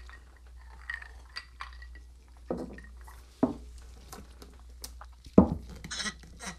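Ice and glass clinking in rocks glasses as cocktails are sipped and set down on wooden barrel tops: a series of scattered light clinks and a few duller knocks.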